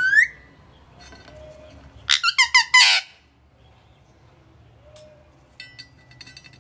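Pet parrot calling: a short rising squeak at the very start, then a quick run of about five loud, high squeaking calls about two seconds in.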